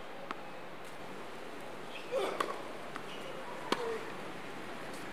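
Tennis ball being hit with rackets on a hard court: a few sharp pops, the loudest nearly four seconds in, with a softer bounce near the start.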